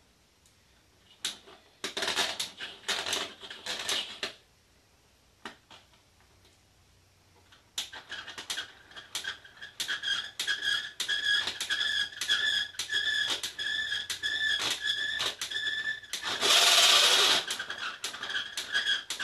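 Winding crank on the launcher post of a da Vinci helicopter model kit being turned to wind up the rubber motor inside the post: a flurry of clicks at first, then steady rhythmic clicking with a squeak about twice a second, and a louder rasping burst near the end.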